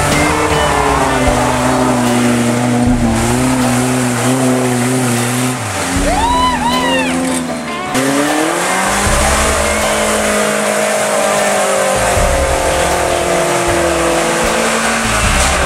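Suzuki Samurai engine revving up and down as the 4x4 ploughs through deep mud and water, with a sharp high rev about six seconds in and water splashing around the tires.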